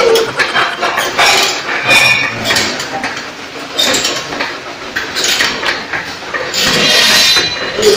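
Metal clinking and rattling from a stationary exercise bike being pedalled, a quick run of clicks and clatters throughout, louder about seven seconds in.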